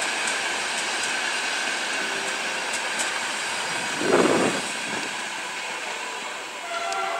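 Intercity express passenger coaches rolling past: a steady rush of wheels on rail, with one brief, louder rumble about four seconds in.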